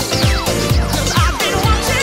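Electronic dance music with a steady beat of about two kicks a second, each with a falling synth sweep, over held chords.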